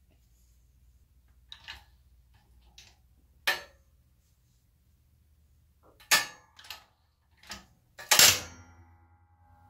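Wooden block knocking and clacking against the steel plates of a hydraulic press as it is set in place, in a string of separate sharp knocks. The loudest is a hard knock about eight seconds in, followed by a metallic ringing that dies away.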